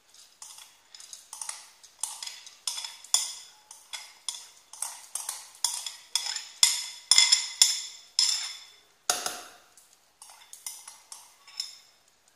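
Soaked urad dal being tipped and pushed by hand into a stainless-steel mixer-grinder jar: a quick run of clinks and scrapes on the steel, two or three a second, each ringing briefly. One heavier knock comes about nine seconds in.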